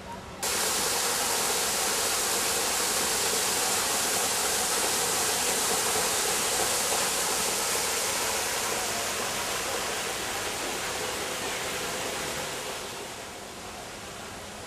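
Steady rush of water running over rocks in a garden stream. It starts abruptly just after the beginning and eases off gradually over the last couple of seconds.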